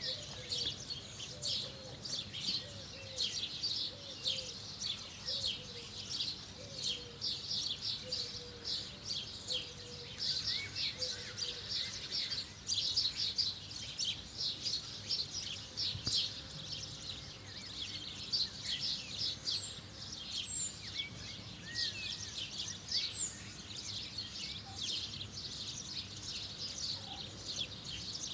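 Small birds chirping rapidly and continuously, a dense twittering that thins out after about two-thirds of the way through, leaving a few scattered higher chirps.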